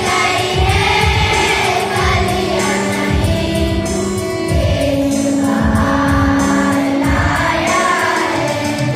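A children's choir singing a Christian song together, holding sustained notes, with a steady low beat underneath.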